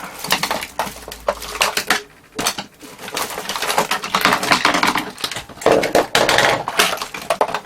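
Metal screwdrivers and small hand tools clattering and clicking against each other as they are rummaged through, in a busy run of rattles with a short pause about two seconds in.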